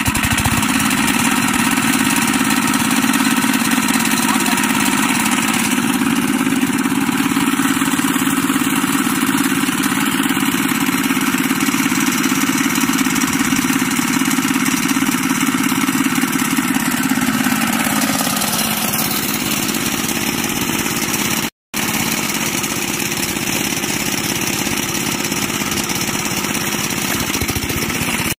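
The single-cylinder diesel engine of a walking (two-wheel) tractor, just started and running steadily. Its tone shifts about eighteen seconds in.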